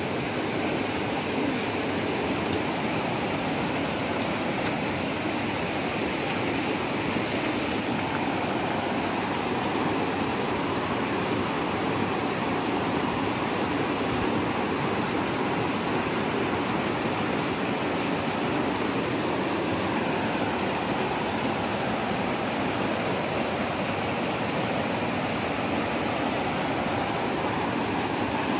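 Shallow, rocky river rushing over stones and through rapids: a steady wash of running water.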